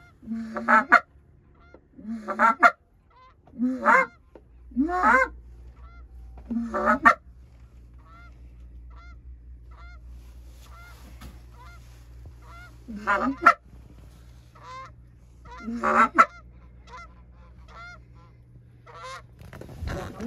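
Goose honking. The loud, close honks come from a hunter's goose call, five in quick succession and then two more later, each breaking from a low note up to a high one. Between them a flock of Canada geese honks faintly in the distance.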